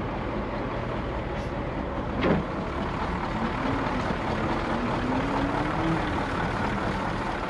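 1978 Ford dump truck's engine idling steadily, with a single knock about two seconds in and a faint wavering tone midway.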